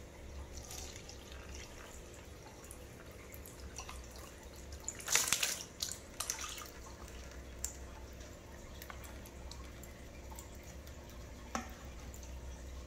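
Water poured from a plastic bottle into a plastic tub, trickling and dripping, with a brief louder noise about five seconds in.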